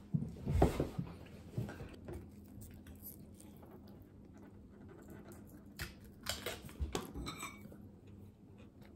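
Soft sounds of eating at a table: a fork working through a takeout salad bowl and small cups and dishes being handled, with a few brief knocks near the start and a cluster of short clinks and rustles past the middle.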